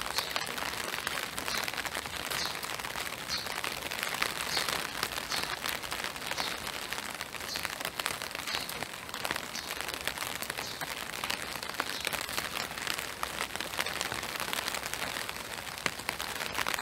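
Steady spring rain falling: an even hiss with many separate drops ticking through it.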